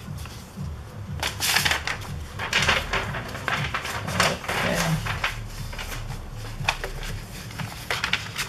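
Paper instruction sheet rustling and crinkling as it is handled and turned, in uneven bursts with a few sharper crackles.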